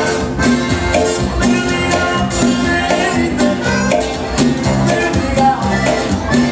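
Live regional Mexican band music with a steady dance beat.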